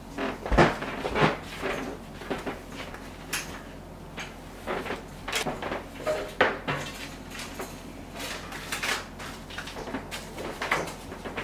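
Irregular knocks, clinks and rustles of household things being picked up, moved and set down in a small kitchen, as shelves and the counter are cleared out.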